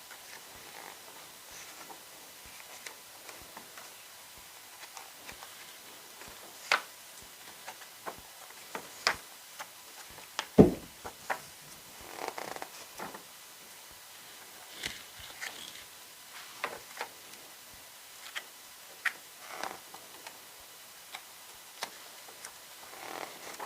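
Paper handling while leafing through an album photo book: scattered light taps and clicks with short rustles of paper, and one louder thump about ten and a half seconds in.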